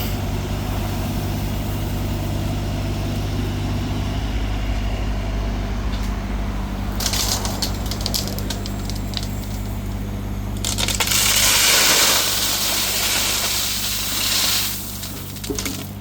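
An engine running steadily at idle. About seven seconds in, crackling and crunching join it, and from about eleven to fifteen seconds they grow into a loud rushing hiss.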